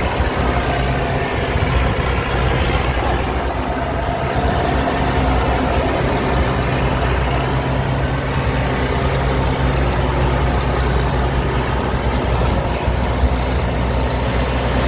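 Thai Seng Yon combine harvester running steadily while harvesting rice: a continuous low engine drone with a thin high whine over it that wavers slightly in pitch.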